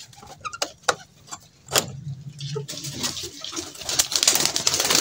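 A few sharp knocks, then domestic pigeons flapping their wings in a loud, dense flutter from about three seconds in, with low cooing underneath.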